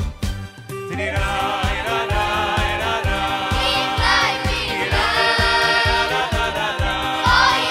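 Boys' choir and men singing together in Hasidic Jewish music, backed by keyboard and a steady beat. The voices come in about a second in, after a few opening drum hits.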